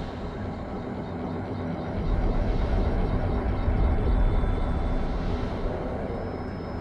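Deep, dense sound-design rumble, heaviest in the low end, that swells about two seconds in and eases off toward the end.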